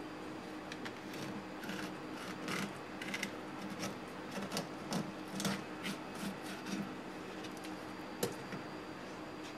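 A knife cutting along a smooth flutemouth on a wooden cutting board: a run of short, irregular scraping strokes against the fish and the board, then one sharp knock near the end. A low steady hum lies underneath.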